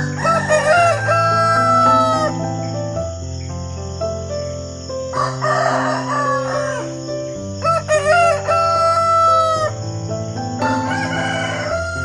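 A rooster crowing about four times: long cock-a-doodle-doo calls about 2 s each, near the start, around 5 s, around 8 s and near the end. Soft background music runs underneath.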